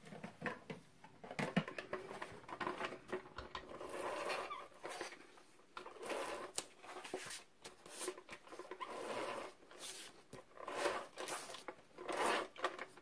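Hands handling cardstock and a clear plastic case on a cutting mat: a run of soft rustles, scrapes, taps and clicks.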